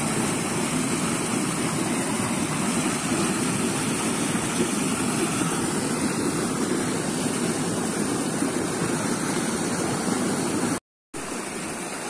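A powerful flow of water gushing from the end of a wide pipe running full and splashing onto the ground, a steady loud rush. It drops out for a moment near the end and comes back a little quieter.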